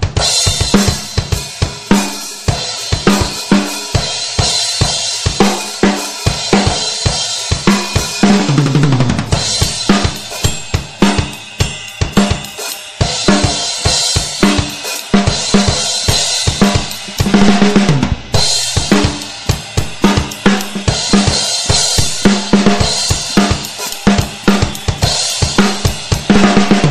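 Pearl drum kit played in a steady beat: kick drum, snare, hi-hat and crash cymbals, with a fill down the toms about eight seconds in.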